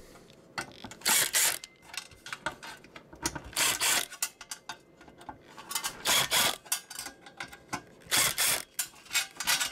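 Ratcheting screwdriver clicking in four short bursts, about two and a half seconds apart, as it backs the screws out of a CB amplifier's sheet-metal fan grille.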